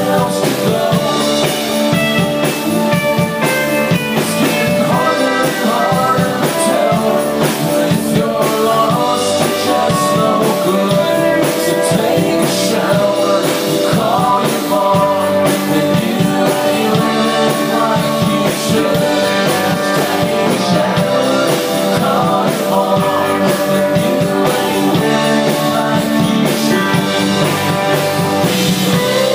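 Live rock band playing loud, with singing over electric guitar and a drum kit.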